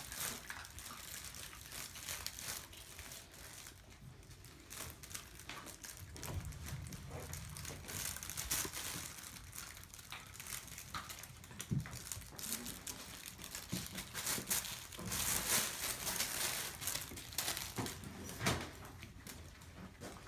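Irregular rustling and crinkling of pads and bedding as Maltese puppies scramble and play on them, with a few soft thumps. It grows louder in the second half.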